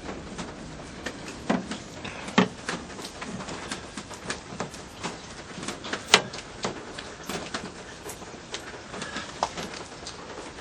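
Irregular light clicks and taps of hands handling the plastic window molding trim on a car door, over a steady faint hiss.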